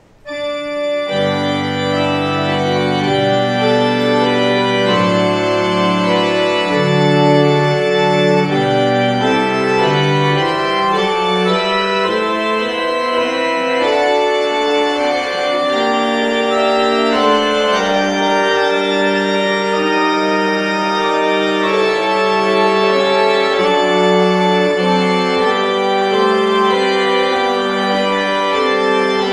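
Church organ playing the postlude: full sustained chords with a moving bass line, entering about a second in.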